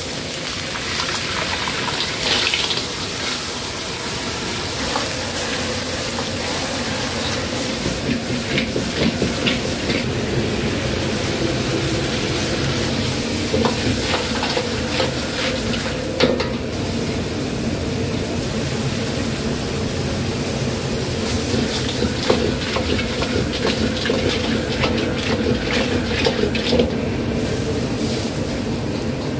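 Stir-frying in a wok: food sizzling over a steady hum, with occasional sharp clanks of a utensil against the pan.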